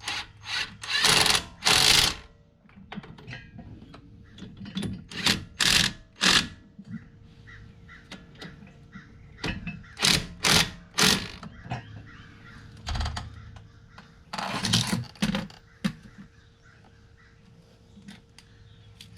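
Hand tools being worked on the truck's front brake caliper and hub: short bursts of mechanical clatter, about ten of them in clusters, over a faint steady hum.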